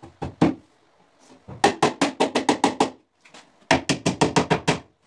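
A hammer strikes a plywood chimney hood: two blows, then two quick runs of about ten fast taps each.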